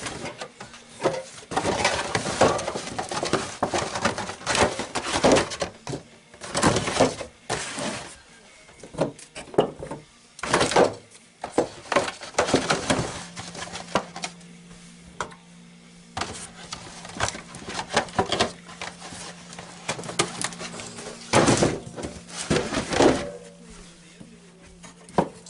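Cans and cardboard cases of canned drinks being handled, shuffled and set down on a wooden counter: irregular clatter, rustling and knocks. A low steady hum comes in about halfway through.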